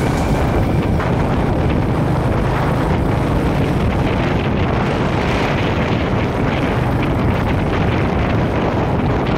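Wind buffeting the microphone on a moving motorcycle, a steady loud rumble with the motorcycle's engine running underneath.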